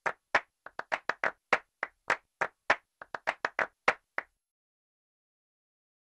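A quick, uneven run of about seventeen sharp clap-like clicks, stopping about four seconds in.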